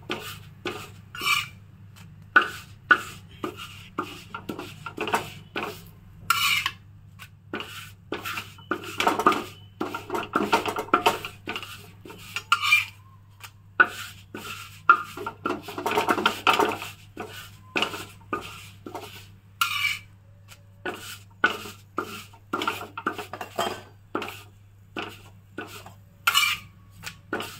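Wooden khakhra press scraping and knocking against a khakhra on an iron tawa as it is pressed and turned to roast it crisp, in irregular strokes about two a second.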